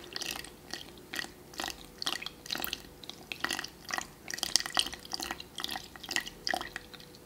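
Warm water poured slowly from a bowl into a mixing bowl of flour, trickling and dripping in irregular splashes several times a second; the pour stops near the end.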